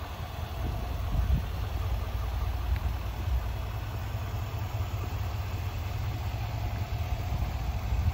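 Chevrolet Silverado 2500 HD's 6.6-litre Duramax turbodiesel V8 idling steadily.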